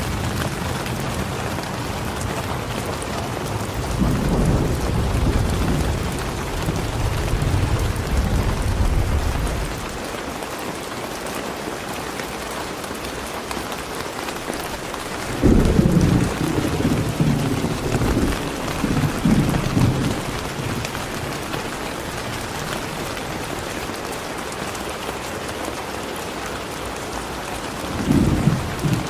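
Steady rain falling, with deep rolling rumbles of thunder three times: a long one a few seconds in, a stronger one about halfway through, and a brief one near the end.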